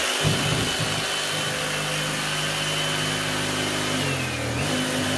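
Reciprocating saw (Sawzall) running steadily while making shallow cuts into a ceiling. Its pitch dips briefly about four seconds in, as the motor slows under load.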